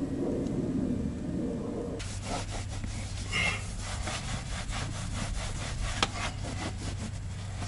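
A cloth rag wiping back and forth over a leather car seat: a rhythmic scratchy rubbing that starts about two seconds in, with a sharp click about six seconds in. A low hum comes before the rubbing starts.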